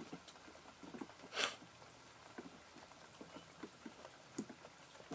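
Faint rain pattering and dripping, with scattered small taps. A brief louder rustle comes about a second and a half in, and a single sharp click near the end.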